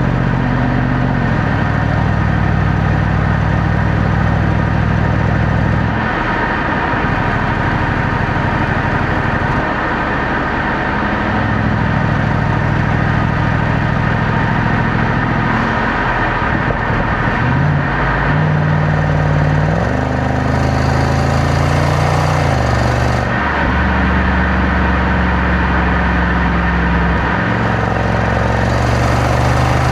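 Jaguar XFR's supercharged 5.0-litre AJ133 V8 running through its stock exhaust. The engine note shifts up and down in pitch several times, with a short rise in revs about two-thirds of the way in before it drops back.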